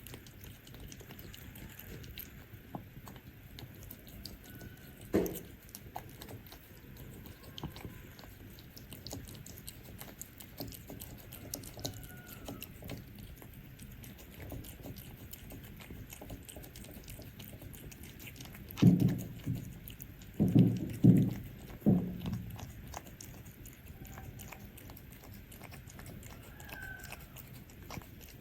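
Cats eating, with steady small chewing and crunching clicks. A few dull knocks come about five seconds in and in a quick cluster near two-thirds through, the loudest sounds here.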